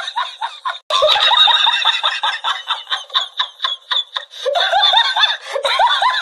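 High-pitched laughter in rapid, stuttering bursts, thin and tinny with no low end, the same pattern coming round again near the end.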